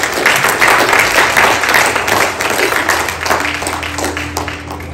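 Congregation applauding, many hands clapping at once, loud at first and tapering off near the end.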